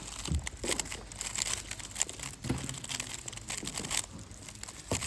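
Gan 12 MagLev 3x3 speedcube being turned fast, a dense run of irregular plastic clicks and clacks.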